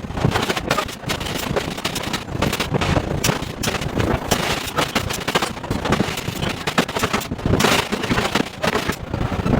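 Hydraulic forging hammer striking hot steel in a rapid, irregular run of heavy blows, several a second.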